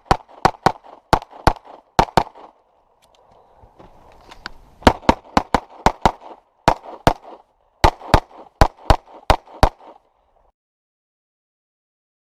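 Handgun fired in rapid strings during a practical pistol stage: a quick run of about seven shots, a pause of about two seconds, then more fast strings of shots. The sound cuts to silence about ten seconds in.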